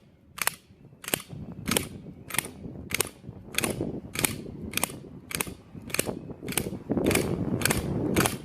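Sharp mechanical clicks repeating evenly, about one and a half a second.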